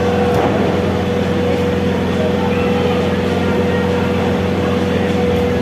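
A steady droning hum with one constant tone, over a noisy background of arena crowd sound.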